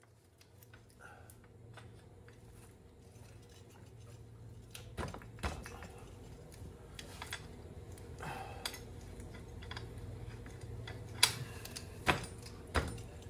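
Scattered light metallic clicks and clinks from the motorcycle's rear wheel, axle and O-ring drive chain as the wheel is pushed and worked by hand to move it forward, with a few sharper clicks near the end. A low steady hum runs underneath.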